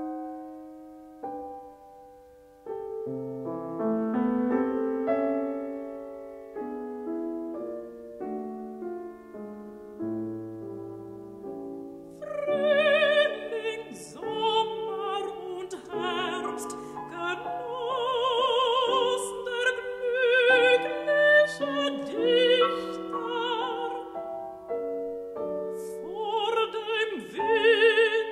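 A German art song (lied) for voice and piano. The piano plays alone for about twelve seconds, then a trained classical female voice comes in, singing with a wide vibrato over the piano accompaniment.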